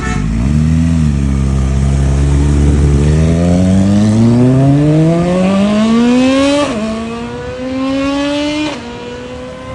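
CFMOTO 500 Voom SR motorcycle engine holding a low, steady note, then accelerating with the pitch climbing. The pitch drops suddenly twice, at upshifts about 6.7 and 8.7 seconds in, before settling.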